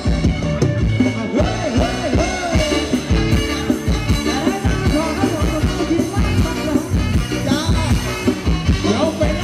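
Live band playing upbeat Thai ram wong dance music, with a singer over a steady beat.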